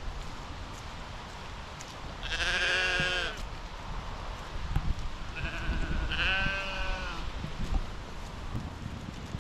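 Bleating livestock: three wavering calls, the first and last each about a second long, with a short one between. Low, irregular thumps of footsteps run underneath.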